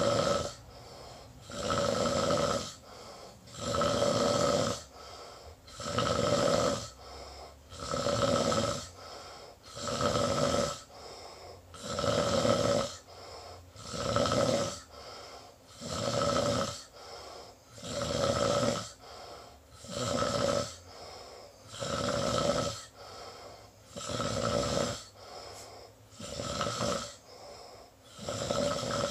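A sleeping person snoring in a steady rhythm: a loud snore about every two seconds, each followed by a softer breath.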